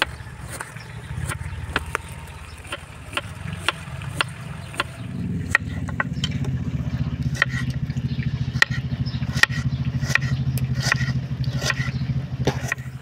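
Kitchen knife slicing a red onion on a wooden cutting board: regular knocks of the blade on the board, about two a second. Under them runs a steady low engine-like drone that grows louder about five seconds in.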